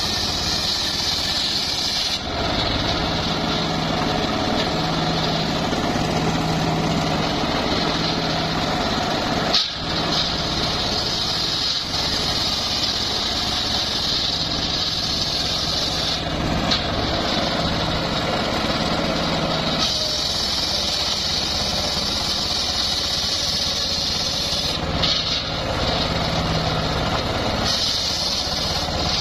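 Homemade circular sawmill ripping a log into boards: the big circular blade whines high as it runs through the wood, over the steady drone of the drive engine. The whine eases off and comes back a few times between passes, and there is one short knock about ten seconds in.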